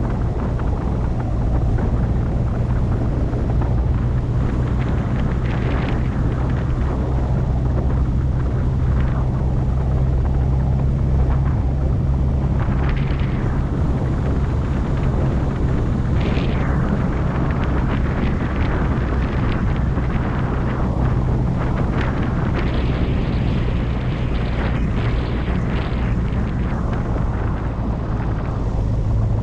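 Car driving at steady speed: a constant low engine drone under road and wind rush.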